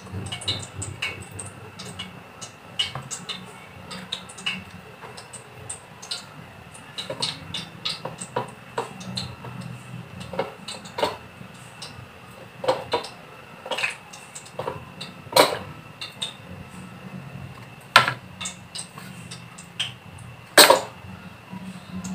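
Hands turning and pressing raw chicken pieces in flour and beaten egg on ceramic plates, with scattered soft taps and rubbing and three sharper clinks against the dishes later on. A steady low hum runs underneath.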